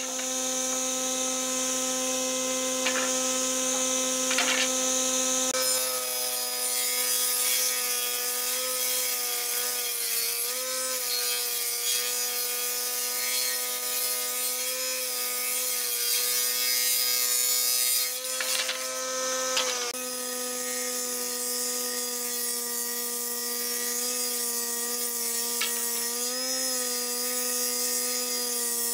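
Combination woodworking machine (table saw and jointer-planer) running steadily as wooden boards are fed through it. Its motor hum sags briefly in pitch a few times under the load of the cut, over a constant high hiss of cutting.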